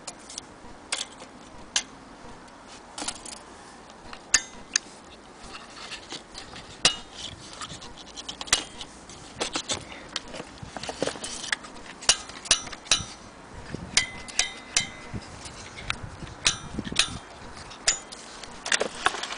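Irregular sharp clicks and light metallic clatter from an old Imperial accordion being handled: its metal buttons and levers are pressed and released and its fittings knock, some clicks leaving a brief faint ring.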